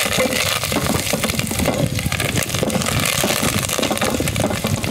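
Curry leaves and dry red chillies crackling and sizzling in hot ghee with moong dal and cumin seeds: a spluttering tempering, stirred with a wooden spatula against a metal pan. The crackle is loud and dense throughout.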